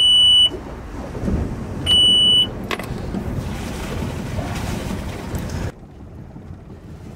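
Yanmar marine engine panel alarm buzzer giving two steady high beeps, each about half a second long, as the key is turned on. A low rumble with a couple of clicks follows and cuts off abruptly near the end.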